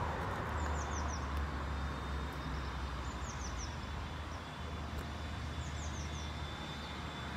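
Outdoor background: a steady low rumble of distant traffic, with a small songbird repeating a short phrase of three or four quick falling notes about every two and a half seconds.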